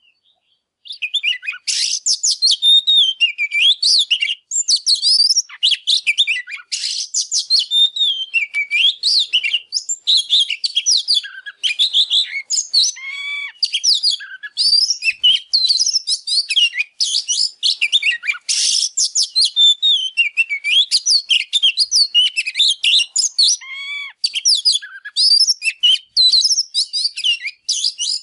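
Male oriental magpie-robin in full song: a fast, endlessly varied stream of high whistles, sliding notes and trills mixed with a few harsh scratchy notes. It starts about a second in and runs almost without pause.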